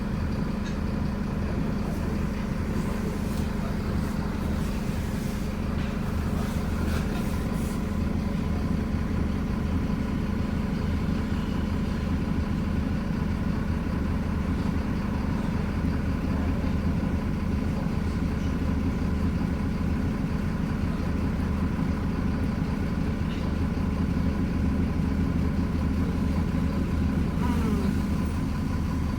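Bus engine running steadily at an even, unchanging pitch.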